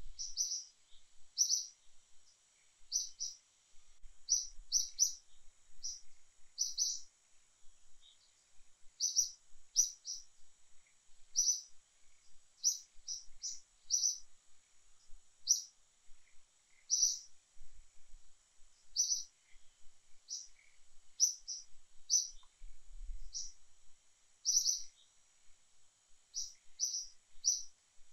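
A bird calling over and over: short, high chirps, singly or two or three in quick succession, every second or so. A faint, steady high tone sits underneath.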